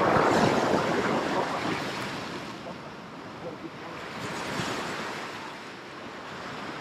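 Ocean swell surging and breaking white against a rock ledge, then washing back. The loudest surge comes at the start and drains away over two or three seconds, and a smaller surge rises again a little after halfway.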